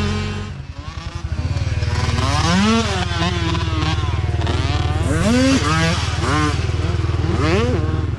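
Mini dirt bike engines revving as the bikes race past, their pitch climbing and dropping again and again through gear changes, with a steady low drone underneath.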